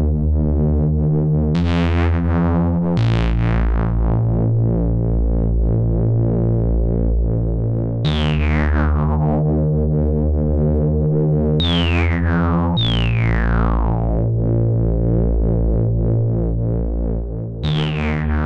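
Dreadbox Erebus v3 analog synthesizer playing long, low held notes that change every few seconds. Four of them open with a bright zap that falls in pitch over a second or two, a filter sweep; the sound is the synth alone, with no external effects.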